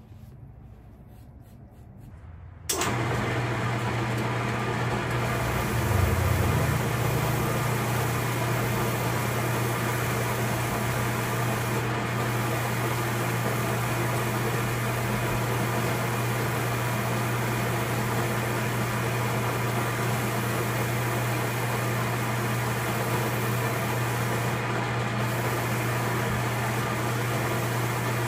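Shoe-repair shop machine, most likely a finishing machine with its dust extraction, switching on about three seconds in and running steadily: a low hum under an even rush of air.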